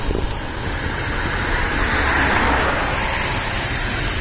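BMW E38 735i's 3.5-litre V8 idling steadily under the hood, a high-mileage engine whose owner thinks it needs some bottom-end work. A rushing hiss swells over it about two seconds in, then fades.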